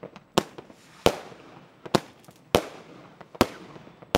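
Fireworks going off: a series of about six loud, sharp bangs less than a second apart, with fainter cracks between them and a brief echo after each.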